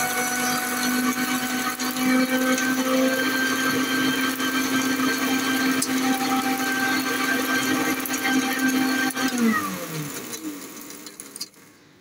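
Electric mixer grinder running steadily with its jar held down by hand, grinding dry seed pods and roots to powder. About nine seconds in, the motor winds down, its pitch falling, and stops near the end.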